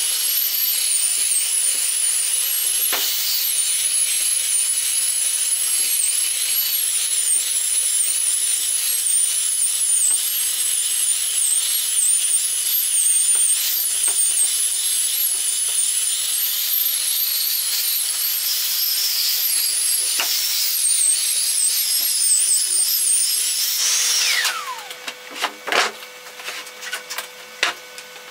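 Handheld belt sander running steadily on the weathered surface of an old oak beam, its high whine wavering as it is pushed along the wood. About 24 seconds in it switches off and winds down with a falling tone, followed by a few knocks and rubs on the beam.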